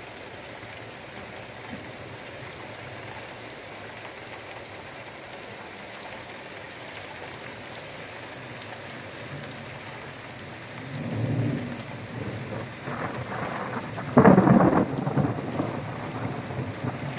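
Steady rain falling on grass and pavement. Thunder rumbles low about eleven seconds in, then a louder thunderclap breaks about fourteen seconds in and rolls on for a couple of seconds.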